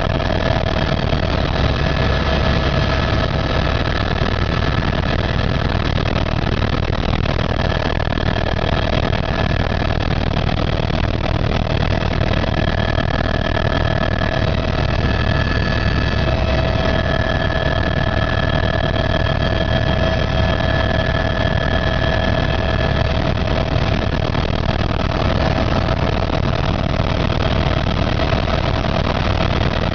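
Helicopter in flight: steady, unbroken engine and rotor noise, a low rumble with a high whine over it.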